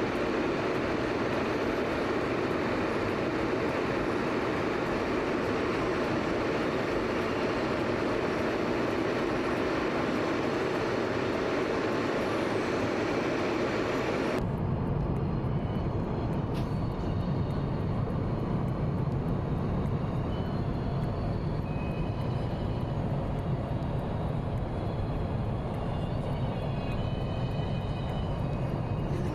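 Steady cabin noise of a Boeing 737 MAX airliner: an even rush of engine and airflow noise. About halfway through it changes abruptly to a duller, lower rumble with less hiss.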